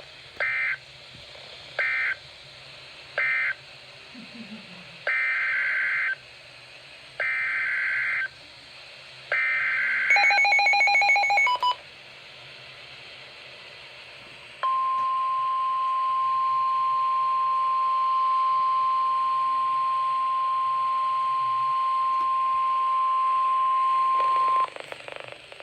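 NOAA Weather Radio Emergency Alert System tones: three short screeching SAME data bursts closing the previous message, then three longer SAME header bursts opening the next alert, a brief pulsing electronic beep, and about a second later the steady 1050 Hz warning alarm tone held for about ten seconds.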